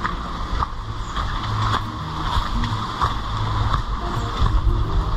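Footsteps on a dirt forest path, about one and a half steps a second, over a low rumble of wind on the microphone.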